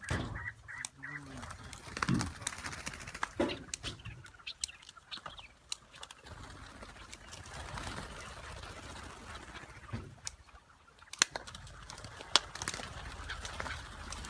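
Chukar partridges clucking and calling, with a scatter of sharp knocks and rustles throughout.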